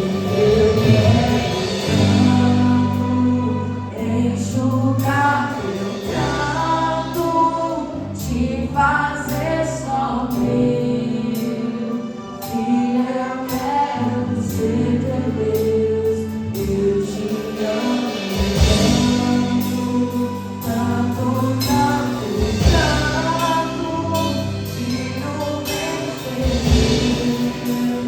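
A worship band playing with singers, a gospel-style song sung over sustained bass and instruments.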